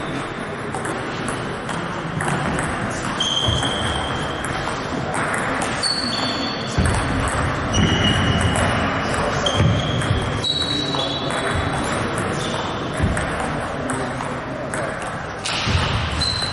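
Table tennis rally in an echoing sports hall: the celluloid ball clicking off bats and table, with about ten short high squeaks from players' shoes on the hall floor.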